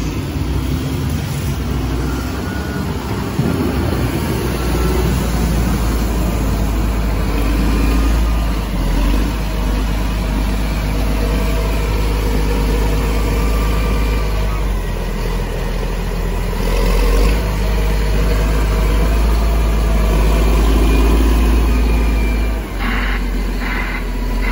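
Cat 160M motor grader's diesel engine running under load as its steel blade pushes and scrapes packed snow along the road. A repeating beeping, about two beeps a second, starts near the end.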